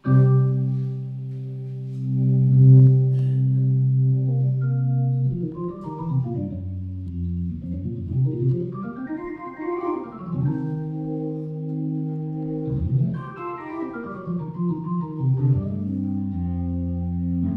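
Electric organ playing held chords, with sweeping runs that climb and fall back twice, about eight and thirteen seconds in.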